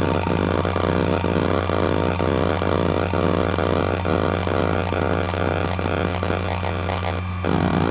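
ExcelStor CT210 hard drive's head actuator seeking back and forth under the hdmotion test program: a fast, patterned stream of seek clicks over the steady hum of the spinning platters. The seeking stops briefly near the end, then starts again.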